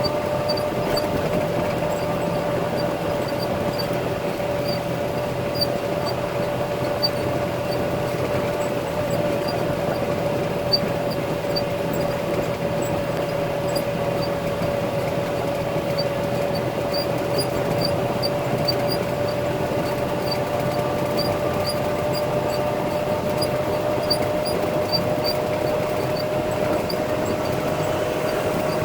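Concrete mixer truck's diesel engine running steadily, with a constant whine over the engine noise and faint high squeaks repeating every second or so.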